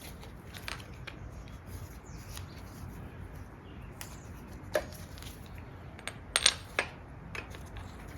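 Scattered small metallic clicks and clinks of parts and tools being handled while an oil cooler is fitted to an engine. The loudest is a quick run of three sharp clicks about six and a half seconds in, over a low steady background hum.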